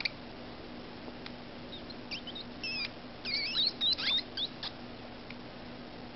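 Newborn hedgehogs squeaking: a flurry of high, wavering chirps that rise and fall in pitch, starting about two seconds in and lasting a couple of seconds, loudest in the middle. A steady low hum runs underneath.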